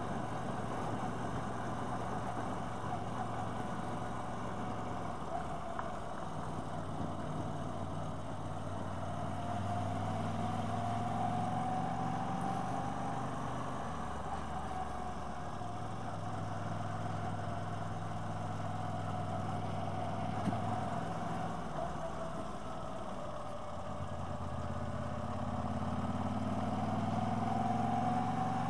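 Motorcycle engine running while riding, its note rising and falling in steps as the throttle opens and closes through the bends, over a steady rush of wind and road noise. One short click about 20 seconds in.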